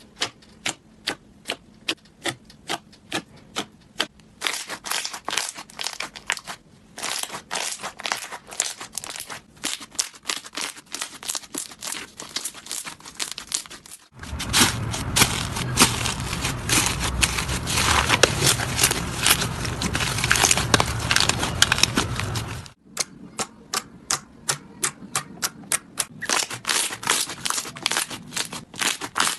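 Slime being squeezed and poked, making sharp popping and crackling clicks. About halfway through it changes abruptly to a dense, fuller crackling for several seconds. Then it cuts back to sparser clicks.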